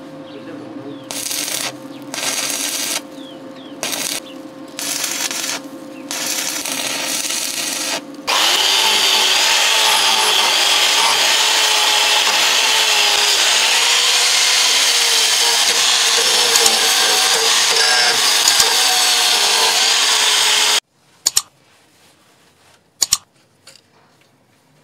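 Stick-welding arc crackling in short bursts about a second long as square steel tubing is tack-welded. Then an angle grinder with a wire cup brush runs for about twelve seconds, its pitch wavering as it is pressed onto the welds to clean them, and it cuts off suddenly. Two sharp clicks follow.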